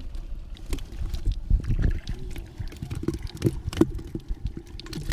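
Live eels in a little muddy water inside a plastic cooler, with wet sloshing and splashing, a low uneven rumble and scattered sharp knocks.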